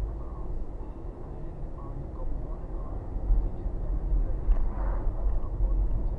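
Steady low rumble of a car's engine and tyre noise heard from inside the cabin while driving, growing somewhat louder about halfway through.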